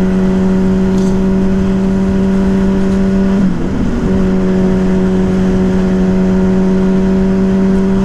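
Yamaha Fazer 600 inline-four engine with a WR slip-on exhaust running at a steady cruising speed, with wind rushing past. About halfway through, its tone wavers and dips for a moment, then holds steady again.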